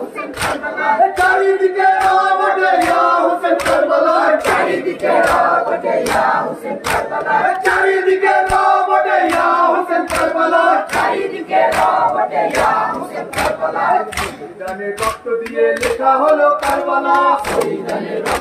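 A group of men chanting a Muharram lament for Hussain in unison while beating their chests in matam. The sharp slaps of hands on chests land about twice a second, keeping time with the chant.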